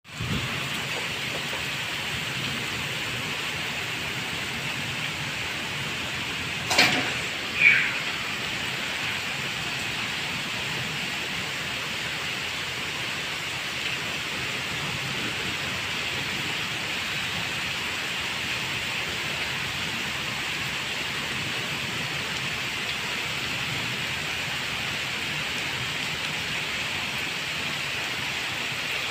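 Heavy rain falling steadily, an even hiss. About seven seconds in come two brief sharp sounds a second apart, the second with a short falling squeak.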